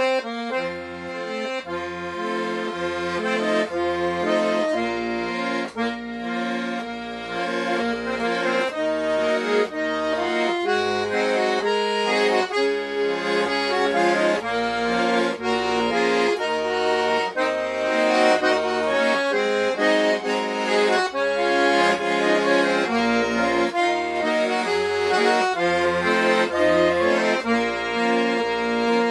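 Garmon, a button accordion, playing a lively folk tune: a melody over a regular pulse of bass notes.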